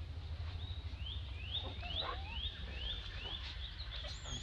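A steady series of short, high, rising chirps, about three a second, from a calling animal, over a constant low rumble.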